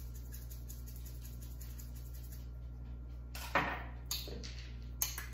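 A metal spoon clinking and scraping in a small stainless bowl of yogurt dressing as it is mixed: one sharp clink about three and a half seconds in, then a couple of lighter clicks near the end, over a low steady hum.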